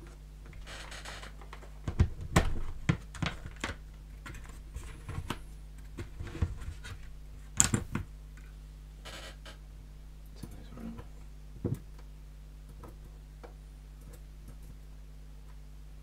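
Scattered small clicks, taps and brief scrapes of metal lock parts being handled on a desk, the loudest about two seconds in and again near the middle.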